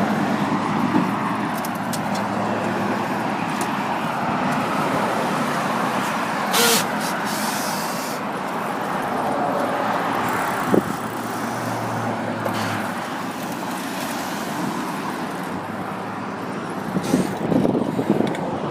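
Road traffic going past, a steady rush of cars with engine hum that fades about two-thirds of the way through, and a couple of brief sharp clicks.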